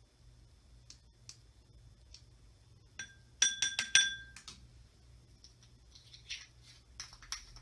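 Measuring spoon clinking against a hard container while glitter is scooped and poured: a rapid cluster of bright, ringing clinks about three seconds in, then lighter ticks and rattles near the end.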